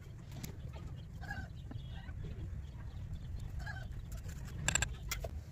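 Chickens clucking: a few short clucks, then two louder, sharper calls near the end, over a low steady background rumble.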